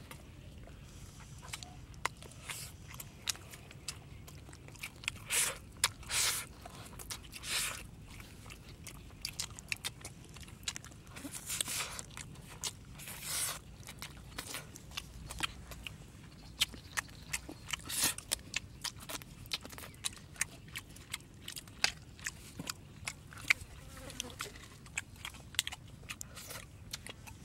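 Close mouth sounds of someone eating cooked rice with his fingers off a banana leaf: chewing with many short smacking clicks and a few longer, louder smacks scattered throughout.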